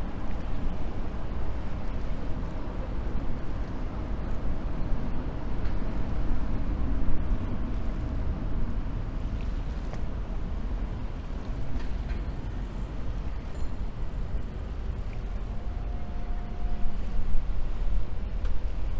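Steady low rumble of city traffic and passing river boats' engines, with a faint steady tone over it in the first half and again briefly near the end.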